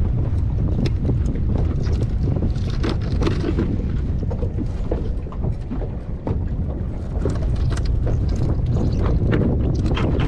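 Wind rumbling on the microphone, under repeated clicks and knocks of a knife chopping bait fish on a cutting board.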